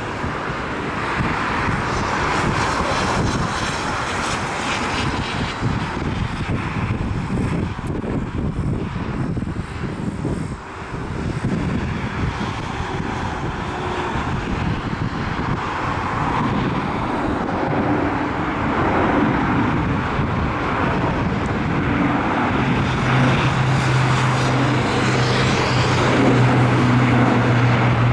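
Airbus A400M Atlas's four TP400 turboprop engines at take-off power as it lifts off and climbs out: a steady roar that grows a little louder, joined by a low steady hum over about the last five seconds.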